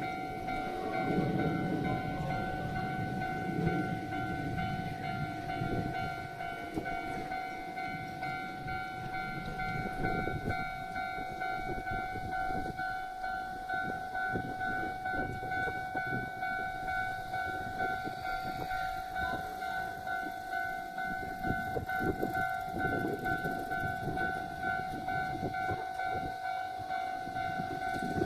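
Railway level-crossing warning bell ringing without a break, its steady electronic tones pulsing evenly. Under it an electric commuter train rumbles past with wheel clatter on the rails.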